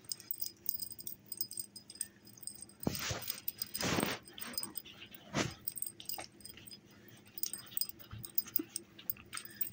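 Short breathy huffs from a pet animal, three louder ones about three, four and five and a half seconds in, with light rustling and clicking between.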